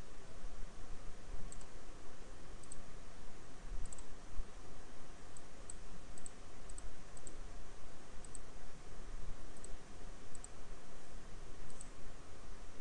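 Computer mouse clicking: about a dozen light, irregular clicks, some in quick pairs, as a list is clicked and scrolled through. There is a steady faint hiss and hum underneath.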